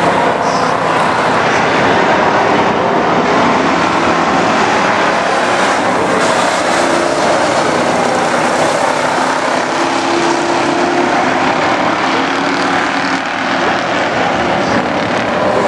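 Street stock race car engines running loud and steady as cars lap the dirt oval track.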